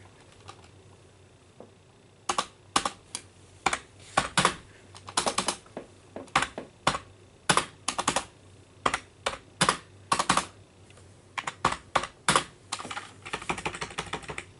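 Typing on a computer keyboard: irregular keystrokes in short clusters, with a quicker run of keys near the end.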